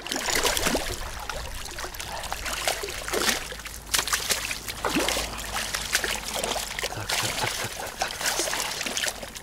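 Water splashing and sloshing in irregular bursts as a common carp, shot with a slingshot arrow on a line, thrashes while it is being hauled in.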